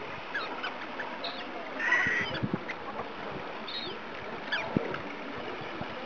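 Gulls calling: scattered short cries, the loudest and longest about two seconds in, over a steady background hiss.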